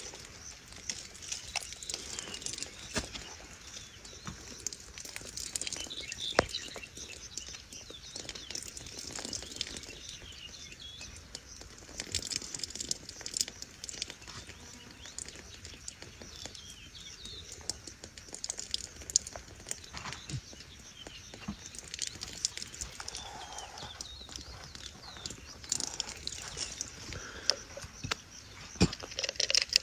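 A squirrel lapping water at the mouth of a hand-held plastic bottle: a long run of quick, soft clicks and ticks, with birds chirping now and then.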